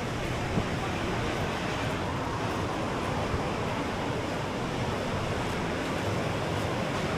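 Ocean surf washing on a sandy beach: a steady rush of noise with no breaks.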